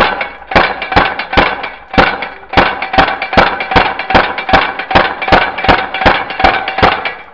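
Prototype AK20 magfed paintball marker firing a steady string of about seventeen sharp shots, two to three a second, that stops near the end.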